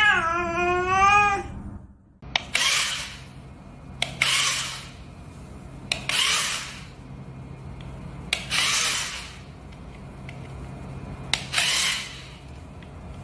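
A cat's drawn-out meow in the first second and a half, then a series of short rasping noises about every two to three seconds, each starting with a click.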